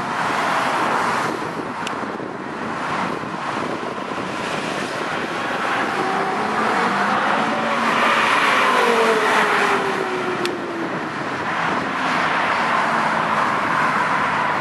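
Porsche Carrera GT's V10 engine accelerating past, loudest as the car goes by about eight seconds in, then pulling away, over the hiss of road traffic.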